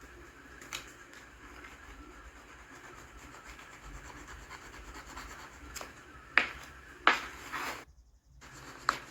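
Vinyl decal film being handled and rubbed against windshield glass: faint rubbing and crinkling, with a few sharp snaps and a short scrape about six to seven seconds in.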